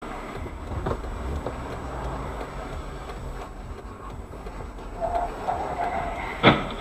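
Steady low rumble of a vehicle on the road, then a single sharp bang about six and a half seconds in, the loudest sound.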